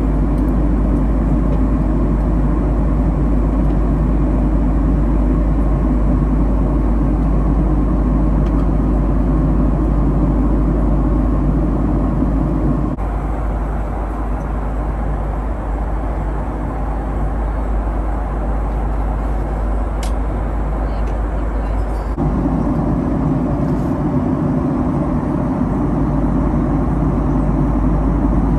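Steady engine and airflow noise inside the cabin of a Boeing 767-300 airliner in flight or on its takeoff run. The low part of the noise drops suddenly about 13 seconds in and comes back about 22 seconds in.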